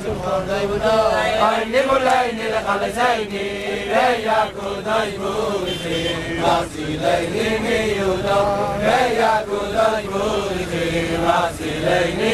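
A group of men singing a Hasidic melody together, voices rising and falling steadily without a break.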